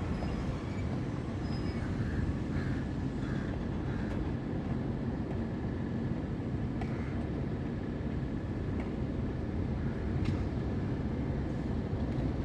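Steady low engine rumble, unbroken, with a few faint ticks on top.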